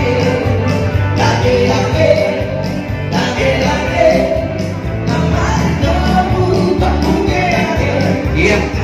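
Band music with a steady beat and singing.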